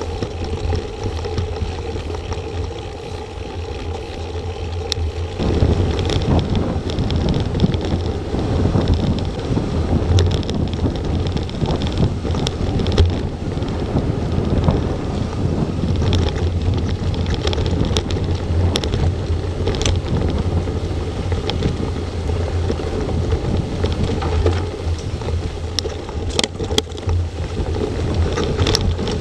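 Wind buffeting an action camera's microphone over the rumble and rattle of a mountain bike riding fast on a dirt forest trail. It gets louder about five seconds in as the bike picks up speed, with scattered sharp clicks and knocks from bumps, several close together near the end.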